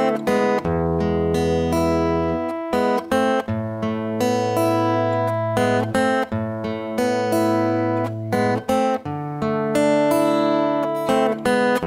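Acoustic guitar fingerpicked slowly through a verse in A minor: bass notes under picked upper strings, the chord changing every couple of seconds.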